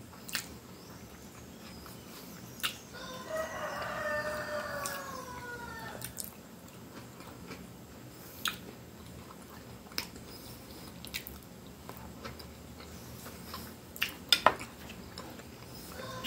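Close-miked eating: chewing and mouth smacks over soft food, with scattered sharp clicks of a fork and lips. A few seconds in, a drawn-out call falls slowly in pitch in the background.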